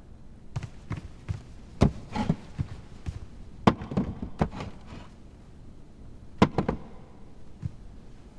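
A series of light knocks and thuds at uneven intervals, some in quick pairs, as objects are handled and set down.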